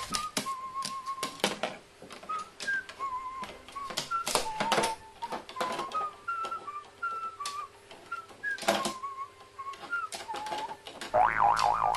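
Sharp, irregular clicks and taps of a carrion crow's beak pecking at a pair of eyeglasses on a wooden board, over a whistled melody of short, stepping notes. Near the end a wavering, trilling tone with a low hum beneath it joins in.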